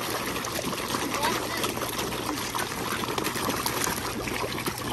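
A crowd of big fish churning at the water's surface and gulping popcorn, a steady dense patter of small splashes, slurps and pops.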